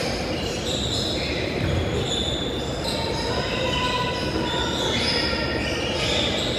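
Basketball sneakers squeaking on a hardwood gym floor: many short, high squeaks overlapping one another, heard with the echo of a large hall.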